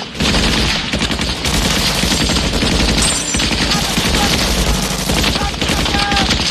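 Sustained automatic gunfire: a boat-mounted machine gun and an M16 rifle firing together in one continuous, unbroken volley.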